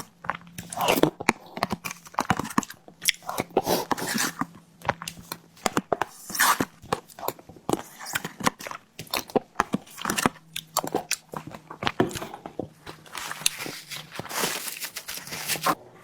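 Close-miked eating sounds of a tiger skin dessert being bitten and chewed: irregular wet mouth clicks and smacks, several a second.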